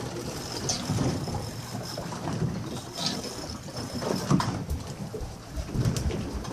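Wind and sea noise aboard a boat on open water: an uneven rumble that swells and dips, with water washing against the hull.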